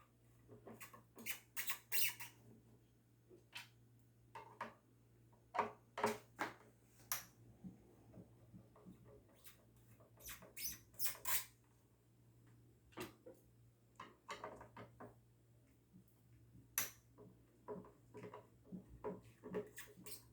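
Screwdriver backing out the four screws that hold a loudspeaker driver in its cabinet: irregular short clicks and squeaks of the screws turning, in clusters, over a faint steady hum.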